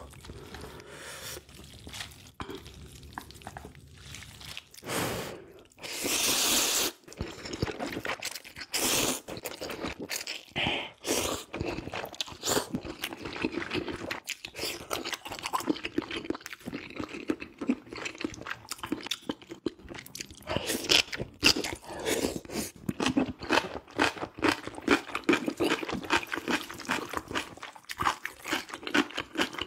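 A person eating ramyeon noodles up close to the microphone: a steady run of chewing with crunchy bites, and a longer noisy stretch about six seconds in.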